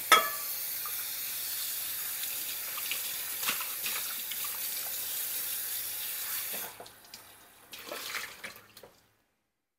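Water running steadily from a kitchen tap, shut off about seven seconds in, followed by a few light clicks and knocks.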